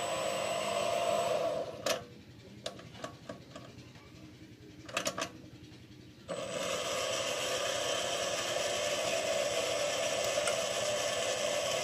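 Small benchtop metal lathe running, its motor and spindle giving a steady whine. About two seconds in it is switched off and goes quiet apart from a few clicks and knocks, then it starts up again abruptly about six seconds in and runs steadily.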